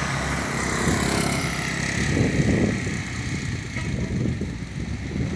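Motorcycle engine running, a steady low engine note under a rough noise.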